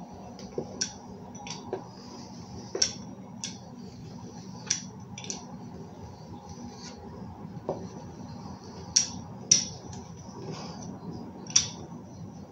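Pizza cutter rolling through soft dough on a wooden countertop, with scattered sharp clicks about once a second, the loudest three in the last few seconds.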